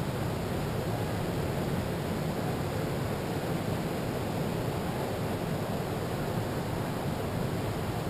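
Steady, even rush of ocean surf breaking along a beach, with no single wave standing out.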